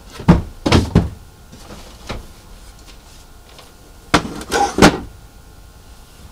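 Plastic toys knocking and rattling against each other and the cardboard box as they are rummaged through and lifted out: a cluster of sharp knocks in the first second, a single one about two seconds in, and another cluster between four and five seconds in.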